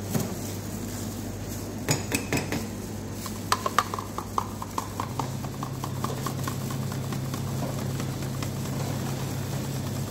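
Knocks and clinks of a plastic cup being handled, with a quick run of light ringing clinks partway through, then liquid pouring in a thin stream from an overhead spout into the cup of strawberry purée for a strawberry mojito.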